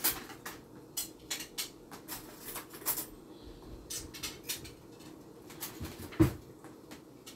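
Dishes, pans and cutlery clinking and knocking on a kitchen counter and stove while food is served onto plates: many light clicks, with one heavier thump about six seconds in.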